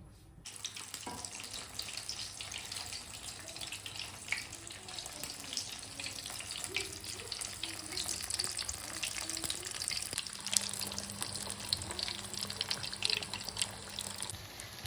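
Vermicelli-coated potato nests deep-frying in hot oil: a steady sizzle with a dense patter of small crackles, starting about half a second in.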